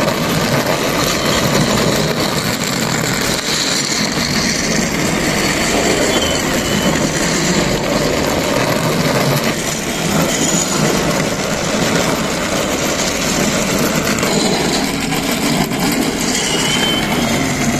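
Battery-powered toy train with a Doraemon-face locomotive running steadily around a plastic track, its small electric motor and wheels making a continuous noise.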